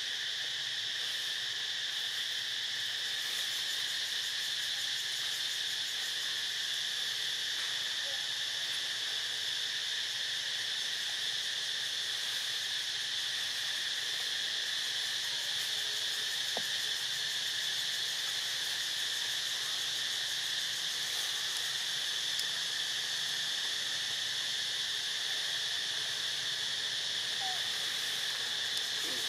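Steady chorus of insects, a continuous high-pitched drone in two pitches that does not change.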